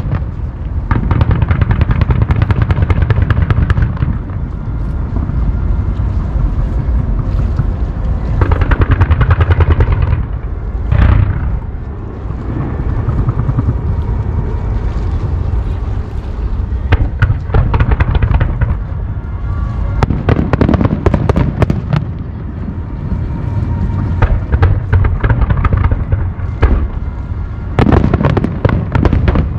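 Aerial fireworks shells bursting one after another in a continuous rumble of booms, with repeated spells of dense crackling from crackle-effect shells.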